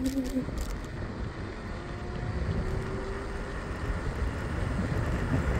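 Steady road and wind noise from a scooter riding along a paved road, a low rumble without a clear rhythm, with a couple of faint brief tones in the middle.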